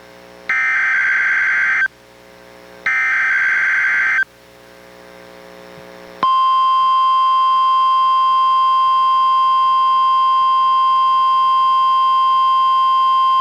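NOAA Weather Radio Required Weekly Test: the last two of the three screechy SAME digital header bursts, each about a second and a half long and a second apart. About six seconds in, the steady 1050 Hz warning alarm tone begins and holds.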